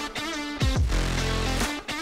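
Background music with deep bass notes that slide sharply downward twice.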